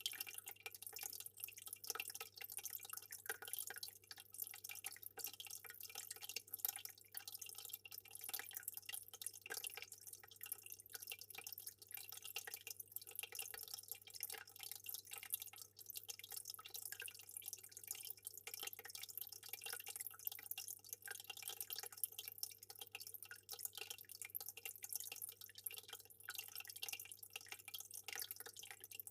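Aquarium water trickling and splashing in a rapid, continuous patter of small drips, with a low steady hum underneath.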